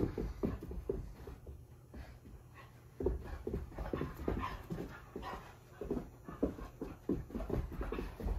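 Doberman puppy panting in quick, uneven breaths as it runs about, with a short lull about two seconds in.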